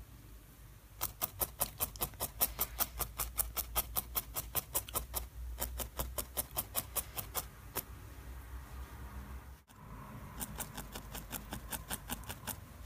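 Barbed felting needle stabbing repeatedly into loose wool, a quick run of crisp pokes about four or five a second. The pokes stop for a few seconds after about seven and a half seconds and start again later on.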